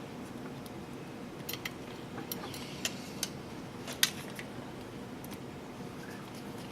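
Small plastic model-kit parts and screws being handled on a workbench: a scattering of light clicks and taps, the sharpest about four seconds in.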